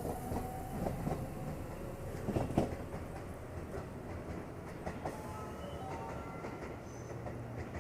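Electric train running on the line past the station, a steady rumble with wheels clicking irregularly over the rail joints.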